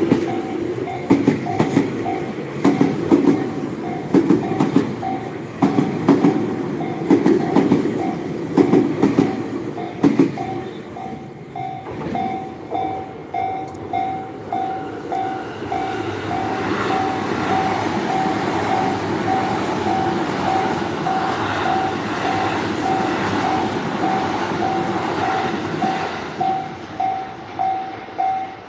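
Level-crossing warning bell ringing steadily about twice a second while a train runs over the crossing. Its wheels clack rhythmically over the rail joints in the first ten seconds, then give way to a steadier rumble as more cars pass, and the bell stands out on its own again near the end.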